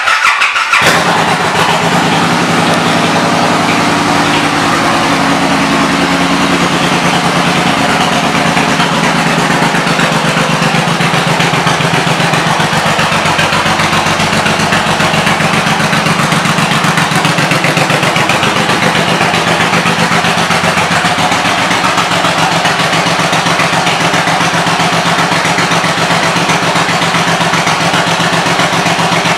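2007 Suzuki Boulevard M109R's big V-twin with aftermarket exhaust pipes starting up, then idling steadily.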